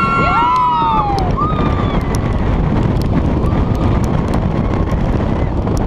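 Wind rushing hard over the microphone as a B&M hypercoaster train dives down its first drop at speed, with riders screaming in the first second.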